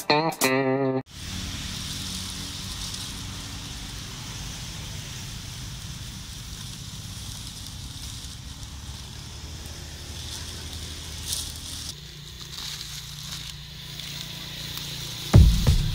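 A short guitar jingle ends about a second in, giving way to steady outdoor background noise: a low rumble with a high hiss. Near the end come a few loud low thumps and crackles.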